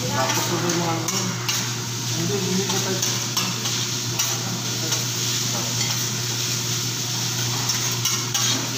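Fried rice sizzling on a hot teppanyaki griddle as a metal spatula chops and scrapes it against the steel plate, with a few sharp taps of metal on metal.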